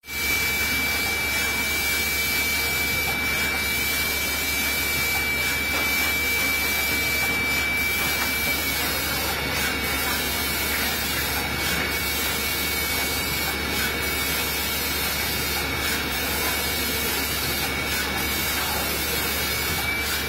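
Steady running noise of factory machinery, with a low hum underneath and a thin, steady high-pitched whine.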